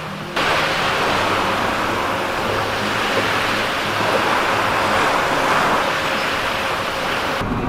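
Sea waves washing in: a steady rushing that swells and eases, starting abruptly just after the start and cut off near the end.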